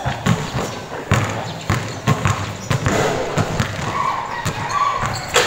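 Basketball bouncing on a hard court floor during play: a string of irregular thuds, with players' voices calling out between them.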